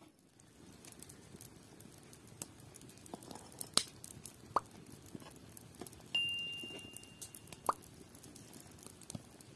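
Fig jam syrup boiling in a metal pot over a wood fire, with scattered plops and pops from the bubbling foam and the crackling fire, and a few sharper snaps. A little after six seconds in, the spoon knocks the pot, which rings briefly and fades.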